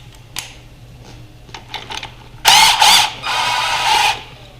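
A power tool runs in two short bursts, the first about half a second with a wavering pitch, the second nearly a second at a steady whine, as a bolt is run out during the dirt bike teardown. A few light clicks of tool handling come before it.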